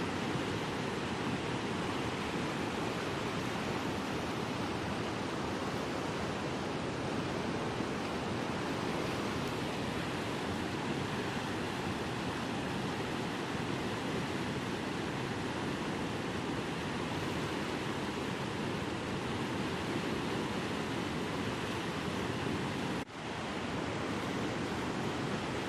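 Heavy rain pouring and water rushing: a steady, dense noise that briefly drops out near the end.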